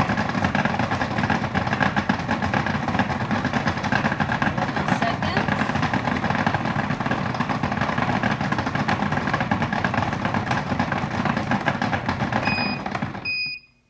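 Breville Sous Chef food processor running its peeling cycle on whole beets: a steady motor whir with a dense rattle of beets tumbling against the bowl. Near the end the motor stops and the machine beeps, marking the end of the 25-second timed run.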